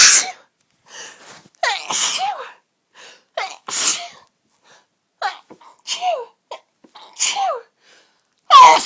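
A person sneezing hard and fast in a fit, about six sneezes roughly a second and a half apart, each a sharp loud 'achoo' with a falling vocal tail. It is an ongoing sneezing fit from a tickle in the nose.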